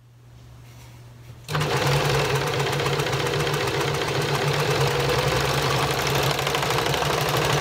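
Overlocker (serger) starting about a second and a half in and then running steadily at speed, with a fast, even stitching rhythm, as it overlocks the raw edge of a fabric panel to stop it fraying.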